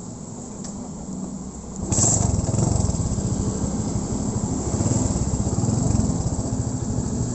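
Motorcycle engine running quietly, then suddenly much louder about two seconds in, revving up and running on steadily with a fast, even beat.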